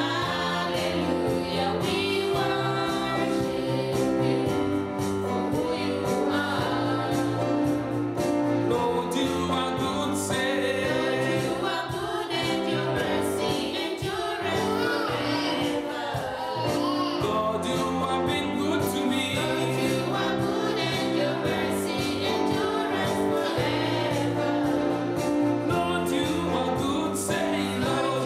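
Recorded Christian worship song sung by a choir with musical accompaniment, starting abruptly and continuing at a steady level.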